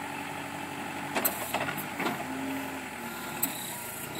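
Princeton PBX piggyback forklift's engine running steadily, with a quick cluster of sharp clanks about a second in and one more clank near the end.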